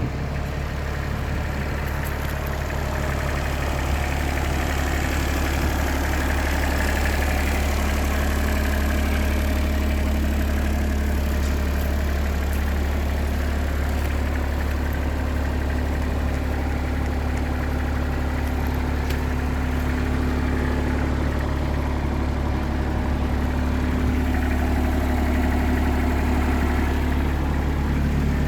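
Cat C1.1 three-cylinder diesel engine of a CAT 301.5 mini excavator idling steadily.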